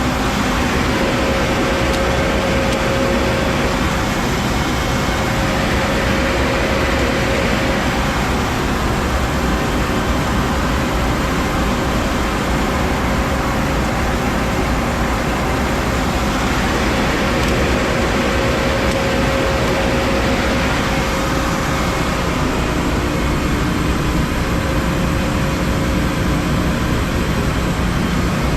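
A two-head 36-inch wide belt sander running steadily, its drive motors and abrasive belts giving an even, continuous machine noise with a faint steady hum.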